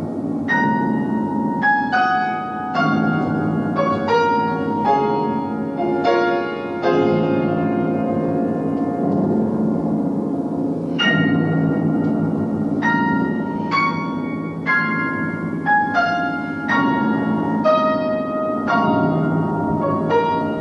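Grand piano played live: a dense, sustained mass of low tone clusters under a melody of single struck notes, about one a second, ringing out like bells.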